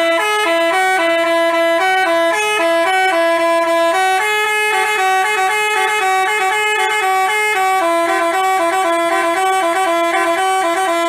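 Telolet basuri musical bus horn playing a tune of quick stepped notes, loud and continuous.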